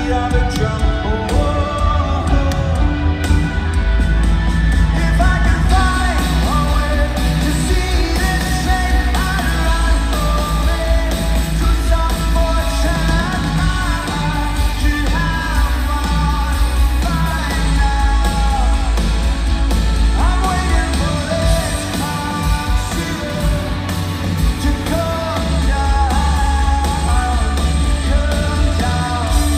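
Live rock band playing a song in an arena, with sung vocals over guitars, bass and drums, heard loud and full through a handheld recording from the audience.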